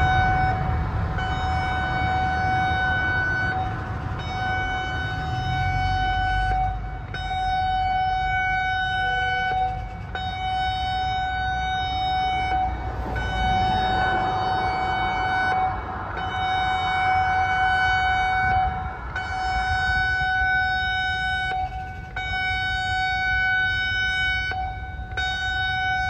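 Federal Signal Modulator 6024 outdoor warning siren sounding its alert signal: a loud, steady single-pitch tone broken by brief gaps every few seconds, over a low rumble.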